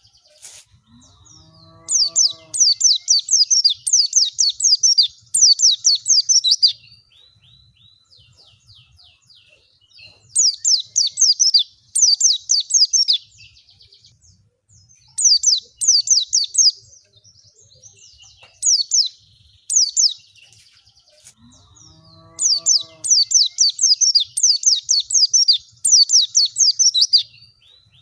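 White-eye (pleci) song: about five phrases of rapid, high, twittering notes, each note a quick downward sweep. The phrases last two to five seconds, with short pauses between them.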